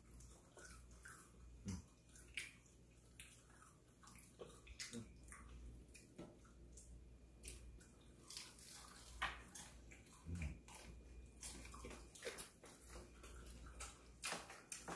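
Faint sounds of people eating fried chicken with their hands: scattered small clicks, crunches and taps, over a low steady hum.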